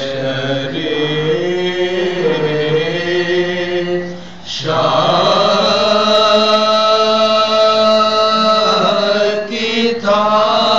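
A group of men chanting a soz, the Shia mourning lament, in unison into a microphone with long held notes. The singing breaks briefly about four seconds in and comes back louder on a higher held line.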